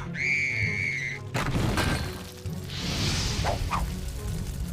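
Cartoon sound effects over background music: a bright, steady magical chime lasting about a second, then a sudden crash, then a rushing whoosh about halfway through.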